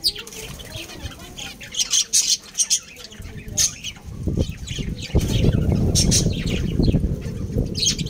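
Aviary of budgerigars and lovebirds giving short, high chirps and squawks again and again. Through the second half, a dense low rustling rumble rises under the calls.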